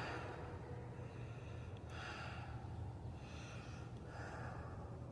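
Faint, close breathing near the phone's microphone, a soft hissy breath roughly every second, over a steady low hum.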